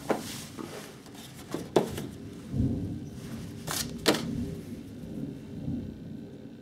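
A folding lockback knife being handled and turned over in the hands: low rubbing and handling noise with a few sharp clicks, two of them close together a little after the middle.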